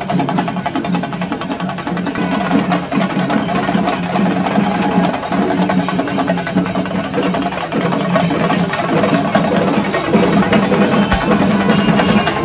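Percussion-led music with dense, rhythmic drum strokes that run on without a break.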